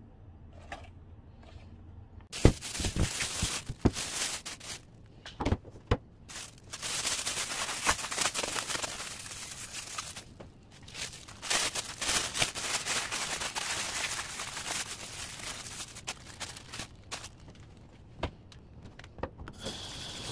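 Thin plastic bags crinkling and rustling as they are handled, knotted and wrapped, in bursts with sharp crackles; the sharpest crackle comes about two and a half seconds in, after a quiet start.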